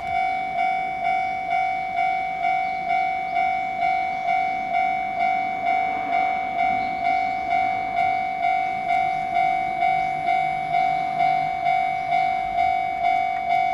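Japanese level crossing warning bell ringing, one steady pitched tone struck about twice a second in an even rhythm.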